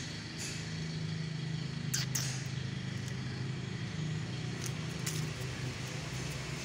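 An engine running steadily with a low hum, with a couple of short clicks about two seconds in and again near five seconds.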